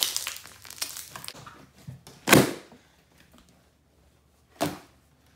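Large batch of glue and hand-soap slime being kneaded with soft sticky crackles, then two short loud bursts about two seconds apart, the first the louder, as trapped air pockets in the slime pop.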